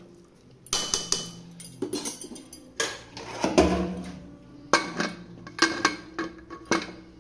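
Metal ladle and lid clanking against an aluminium pressure cooker: about eight sharp metallic knocks, each ringing briefly, as the biryani is stirred and the lid is fitted on.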